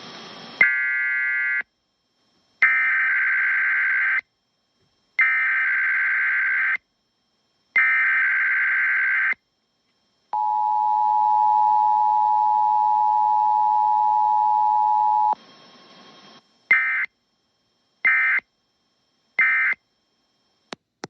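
Emergency Alert System activation tones: a short burst, then three bursts of SAME digital header data squawk, then the two-tone attention signal (853 and 960 Hz) held steady for about five seconds. It ends with three short end-of-message data bursts.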